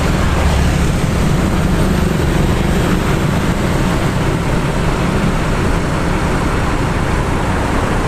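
Street traffic: motor scooters and small vehicles driving past close by, a steady, loud engine and road rumble.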